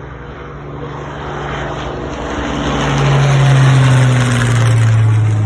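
Propeller-driven aircraft passing close by, its engine and propeller drone growing louder and dropping in pitch as it goes past.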